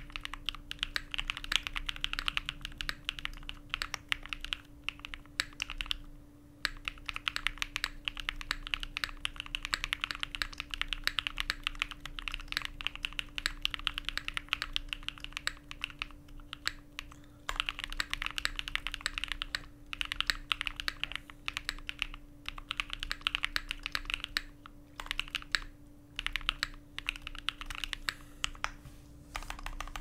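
Roze65 mechanical keyboard with stock Bsun/Yok X switches in an aluminium plate, plate and case foam fitted, being typed on quickly: a dense run of key clacks in bursts, broken by brief pauses.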